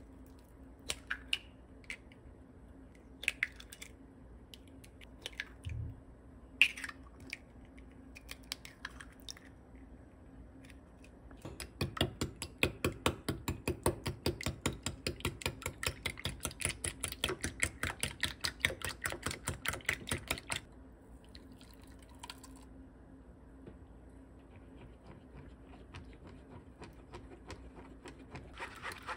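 Eggs cracked into a glass bowl, a few sharp separate taps. Then a whisk beats the eggs in the bowl, rapid, even clicking for about nine seconds, and stops about twenty seconds in.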